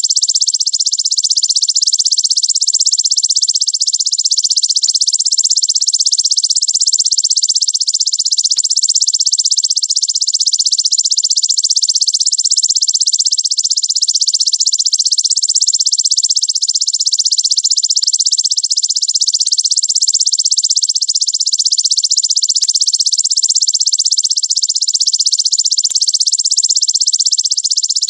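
Belalang raja ('king grasshopper') insect calling in a fast, dense, high-pitched trill, an unbroken stream of rapid pulses with no pauses.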